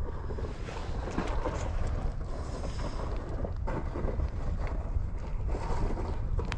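Wind buffeting the microphone with a steady low rumble, with a few faint scrapes and clicks scattered through it.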